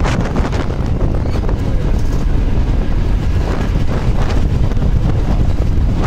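Wind rushing over the microphone with the low, steady rumble of a bus travelling along a road bridge.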